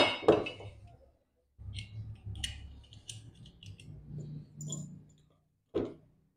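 Steel parts of a 30-bore Tokarev pistol and its magazine clicking and clinking as they are picked up and handled. A sharp metallic clatter comes right at the start, then a string of light clicks with soft handling noise, and one more click near the end.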